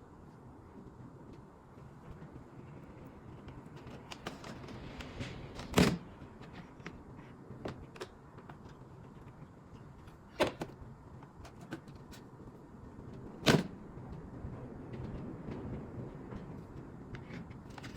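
Hands-on work noise: rustling and small clicks, with three sharp knocks a few seconds apart that stand out above everything else.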